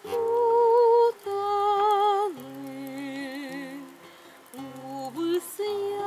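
A woman singing long held notes with vibrato over a guitar accompaniment; her voice steps down to a lower note about two seconds in.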